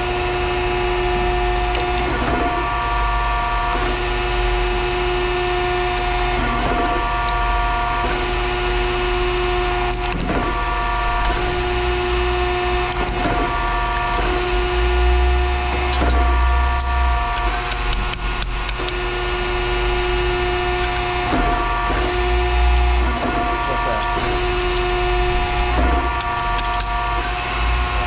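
Machinery running with a steady low hum and a whining tone that breaks off and resumes every few seconds, with a few sharp knocks.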